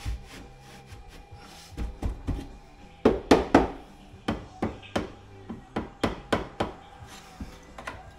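A run of sharp knocks and taps on an 18 mm MDF cabinet, about a dozen of them, the loudest group about three seconds in.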